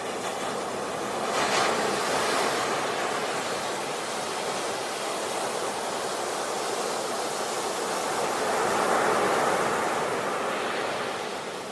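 A steady rushing noise that swells twice, once about a second and a half in and again near the end.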